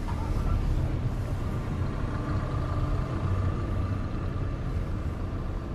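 Vehicle engine idling, a steady low rumble with a faint hum.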